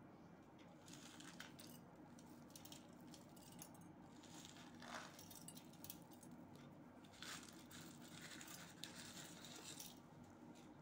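Faint rustling and pattering of dry namkeen snack mix being sprinkled by hand onto puffed rice in a steel bowl, in several short spells.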